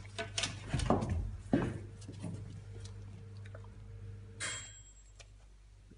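Young Gordon Setter sniffing and snuffling close to the microphone: several short breathy bursts in the first two seconds and one more about four and a half seconds in, over a steady low hum.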